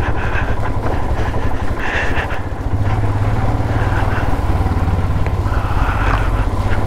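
Motorcycle engine running close to the microphone at low speed over rough ground, a steady low exhaust beat that grows stronger about three seconds in, with the rider's heavy breathing over it.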